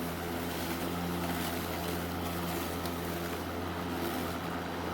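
Ryobi 40-volt brushless battery push mower (RY40180) running steadily while being pushed across the lawn: an even electric motor and blade hum with a constant rush of air.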